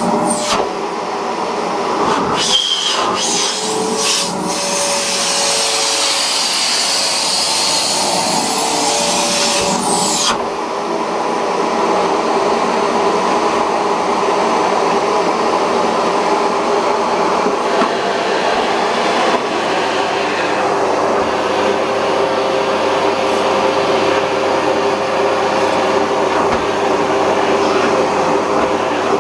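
Philips bagged vacuum cleaner running steadily, its motor giving a continuous whine over a loud rush of air. A bright hiss of suction sits on top for the first ten seconds or so, with a couple of knocks near the start, then drops away suddenly.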